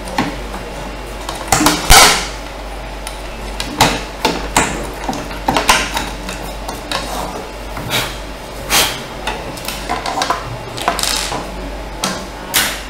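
Drilled holes in an aluminium print-bed plate being deburred by hand with a thick steel drill bit: irregular scraping clicks and clinks of steel on aluminium, with a few knocks as the plate is handled.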